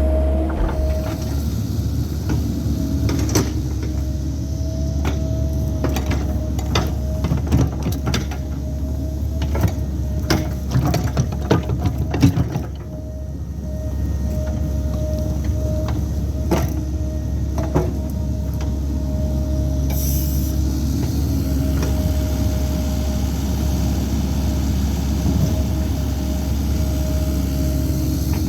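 CAT 308 mini excavator's diesel engine running steadily under load with a constant high whine, while the bucket digs with many sharp clanks and scrapes against dirt and stone, busiest through the first two thirds.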